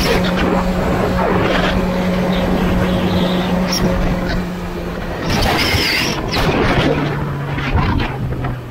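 Yamaha motorcycle's engine running at a steady cruise under heavy wind rush. About five seconds in, the engine note drops lower as the throttle is rolled off and the bike slows.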